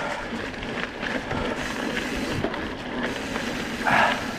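Mountain bike rolling down a loose, shaly dirt trail: steady tyre noise over the stones, with scattered clicks and rattles from the bike and a brief louder scuff about four seconds in.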